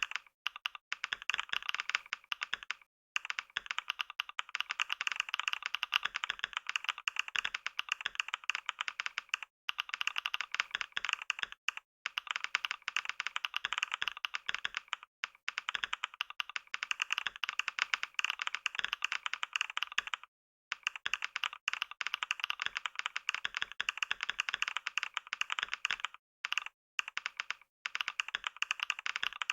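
Computer keyboard being typed on fast and continuously during a typing test, a rapid stream of key clicks broken by a few short pauses.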